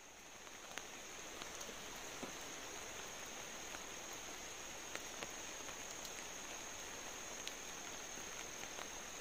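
Steady rain falling, with scattered drops ticking sharply now and then, over a continuous high-pitched insect drone.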